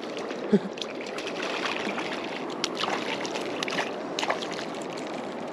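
Steady rush of a fast-flowing glacial river, with a few short splashy clicks as a hooked Dolly Varden thrashes at the surface while being reeled in.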